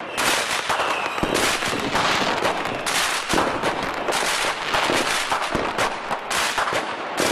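Firecrackers going off in a rapid, dense string of crackling bangs, with a few deeper thumps among them.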